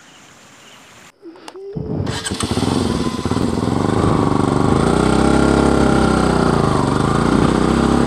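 Motorcycle engine started about two seconds in, catching and then running steadily, its pitch rising and falling slightly.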